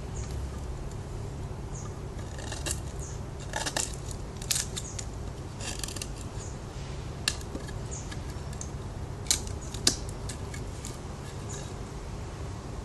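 Spyderco Paramilitary 2 folding knife cutting: a run of irregular sharp clicks and short scraping cuts, the loudest snaps coming about seven and about nine to ten seconds in.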